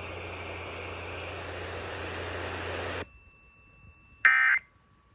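Steady radio hiss with a low hum that cuts off abruptly about three seconds in. Just over a second later comes a short, shrill burst of digital data tones: the first of the Emergency Alert System's end-of-message bursts that close an alert.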